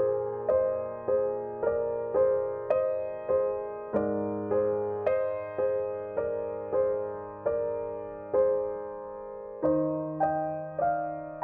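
Background piano music: a slow, even run of notes, about two a second, over low held bass notes that change twice.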